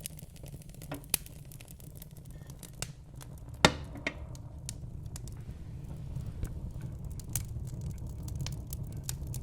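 Wood fire burning in a fireplace: a steady low rumble of flames with frequent sharp crackles and pops from the burning logs, one much louder pop a little over a third of the way in.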